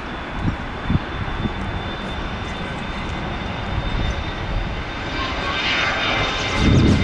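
Turbofan engines of a Bombardier CRJ regional jet running at takeoff power during the takeoff roll: a steady jet-engine noise with a thin high whine, growing clearly louder near the end as the jet rotates and comes closer. Two brief low thumps sound within the first second.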